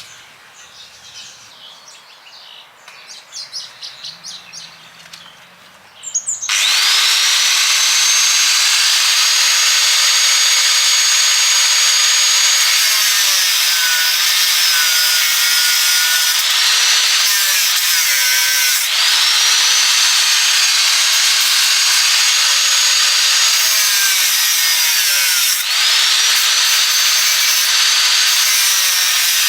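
Handheld electric cutting tool starting up after a few seconds of quiet handling clicks, then running with a loud high whine. Its pitch sags under load and picks back up several times as it cuts.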